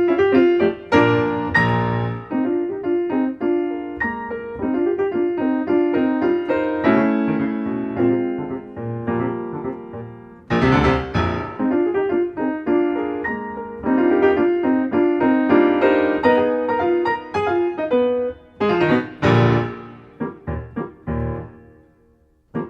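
Solo piano music, a flowing run of notes that trails off near the end.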